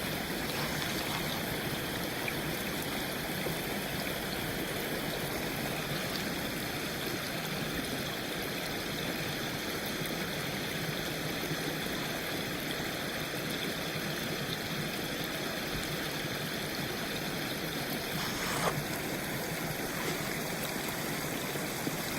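Steady rush of water running through a beaver dam, with one short knock about eighteen seconds in.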